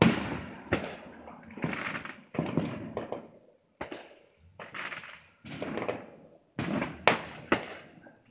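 Neighbourhood fireworks going off: about a dozen sharp bangs in quick, irregular succession, each trailing off in echo.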